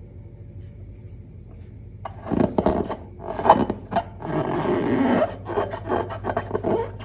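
Glossy slime being kneaded and pressed by hand: an irregular rubbing, crackling and squishing that starts about two seconds in, over a low steady hum.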